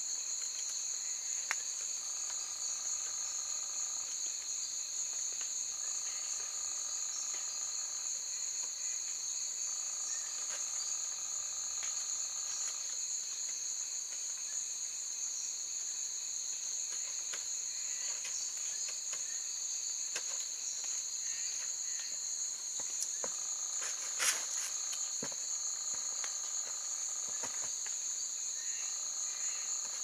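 Night insect chorus of the tropical forest: a steady, high, shrill insect trill holds throughout, with a second lower buzzing call in bouts of about two seconds repeating every few seconds. A few faint knocks and clicks sit on top, the sharpest about two-thirds of the way through.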